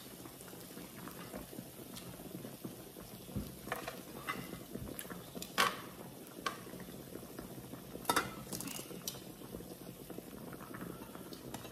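Steady sizzling and bubbling from an electric grill plate with a hotpot in its centre, cooking chicken and soup. A handful of sharp clinks from metal tongs on the plate break through, the loudest about five and a half and eight seconds in.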